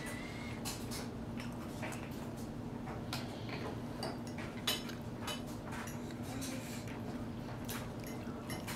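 A baby's hands taking finger food from a silicone plate on a plastic high-chair tray: scattered small clicks and taps, one sharper tap about four and a half seconds in, over a steady low hum.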